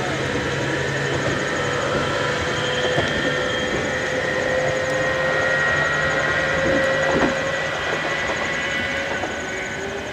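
JR East 719 series two-car electric train pulling away, with a steady motor whine over the rumble of its wheels on the rails. It grows quieter near the end as it draws off.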